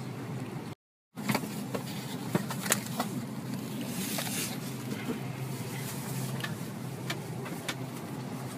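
Steady low hum of an airliner cabin during boarding, with scattered clicks and knocks. The sound cuts out completely for a moment about a second in.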